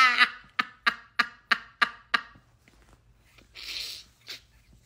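A woman's laughter tailing off: the voiced laugh gives way to breathy puffs, about three a second, which fade out after about two seconds. A single breathy exhale follows near the end.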